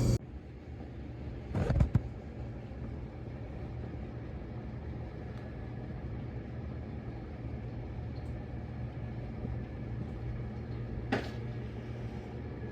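Case IH 2188 combine running steadily, heard from inside the cab as a low drone. There are two brief knocks, one near two seconds in and one near the end.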